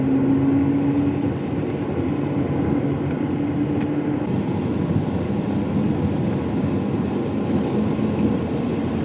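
Car moving on the road, heard from inside the cabin: a steady drone of engine and tyre noise with a low hum.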